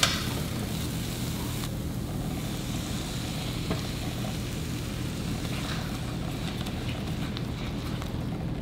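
Diced onion and green pepper sizzling in a stainless-steel skillet, with a few scrapes of a silicone spatula at the start. The sizzle softens about two seconds in as cheese sauce is poured over the vegetables and stirred in.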